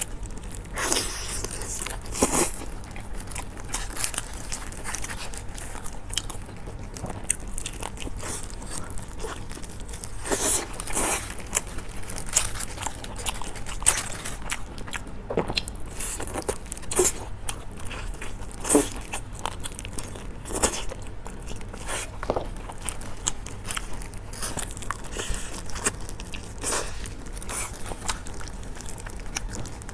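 Close-miked eating of a spicy steamed whole chicken: flesh torn apart by gloved hands, then bitten and chewed, with irregular sharp wet crackles and clicks.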